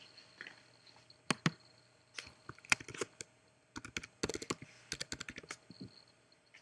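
A run of irregular light clicks and taps, several coming in quick clusters in the middle.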